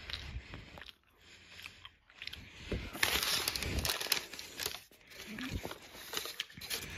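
Paper donut bag crinkling and rustling as a hand reaches inside it, loudest about three to four seconds in.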